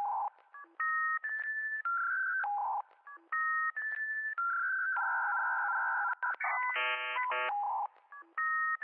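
Instrumental electronic music built from telephone-like beeps: short two-pitch tones in a phrase that repeats about every two and a half seconds. A tone is held about five seconds in, then a buzzy tone sounds twice about seven seconds in.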